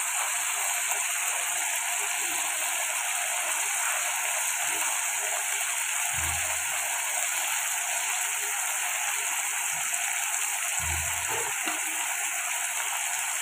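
Spice masala paste sizzling steadily as it fries in a kadai, stirred now and then with a flat spatula. Two dull low thumps come about six and eleven seconds in.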